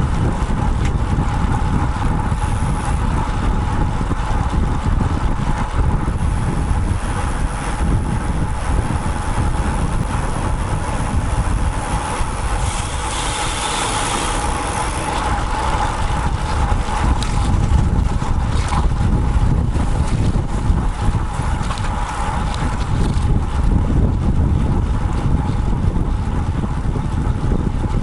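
Wind buffeting the microphone of an action camera mounted on a moving road bike, a steady low rumble with a thin constant hum over it. About halfway through, a brighter hiss swells for a couple of seconds.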